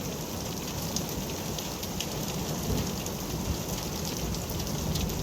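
Heavy thunderstorm rain falling steadily, with scattered sharp drop hits and a low rumble underneath.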